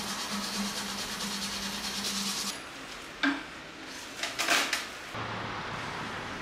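A steady hiss with a low hum, then, a moment after the hum stops, one sharp click and a few short scrapes as a hunting knife's metal blade is handled against a wooden spear shaft.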